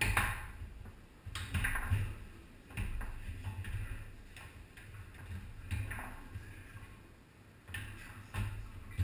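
Foosball play on a Tornado table: the ball struck by the rod figures and rebounding off the table walls, a run of sharp knocks at irregular intervals with rods clacking.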